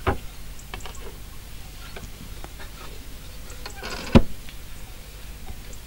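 Light clicks and small knocks from handling a round plastic top feeding tray on a beehive's inner cover, with one sharper, louder knock about four seconds in.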